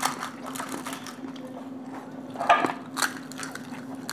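Panipuri being eaten by hand: crisp puri shells cracked open and handled, with chewing and wet mouth noises and a scatter of short sharp clicks. A steady low hum runs underneath.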